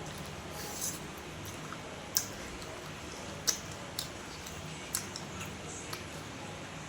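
Close-up eating sounds: a person chewing goat lung and roti, with soft wet mouth noises and a handful of sharp clicks and smacks, the loudest about two seconds in.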